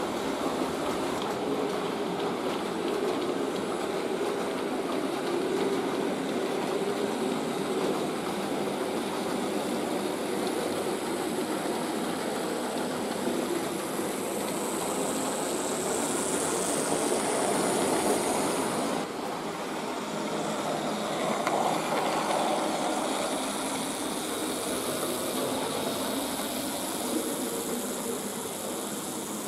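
Märklin BR 96 model steam locomotive running along the layout track with its freight wagons: a steady electric motor hum and the rattle of wheels rolling on the rails. A higher whine comes in for a few seconds around the middle.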